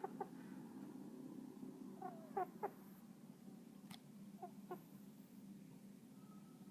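A pet cat snoring: a steady low rasping rumble with short, wavering squeaky whistles about two seconds in and again near five seconds. The owner thinks its nose may be blocked.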